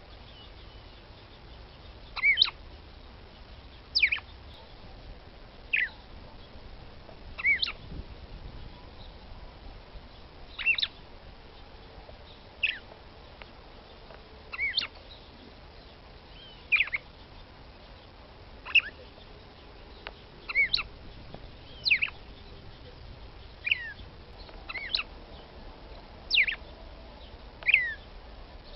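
Female red-cowled cardinal (galo-de-campina, Paroaria dominicana) calling: short, sharp notes, each a quick downward sweep in pitch, some doubled, repeated every one and a half to two seconds. It is a female's call used to warm up a male.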